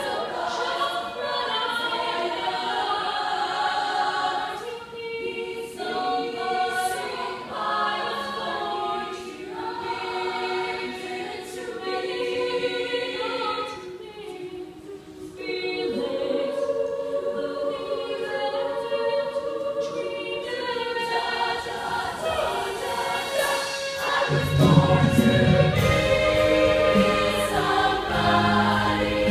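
Female vocal ensemble singing in harmony on stage. Near the end a deep bass part comes in and the sound grows louder.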